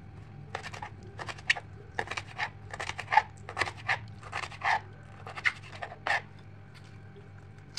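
Kitchen knife cutting a green bell pepper on a plastic cutting board: a quick, uneven run of short crisp cuts that stops about six seconds in.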